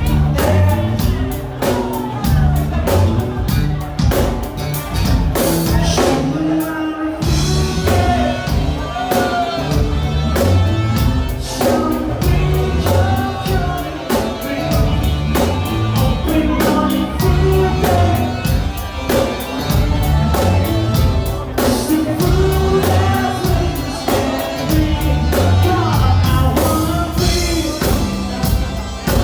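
Live band playing a cover song: a singer over a steady drum-kit beat and bass.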